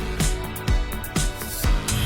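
Background music with a steady beat: a kick drum about twice a second under cymbals and pitched instruments.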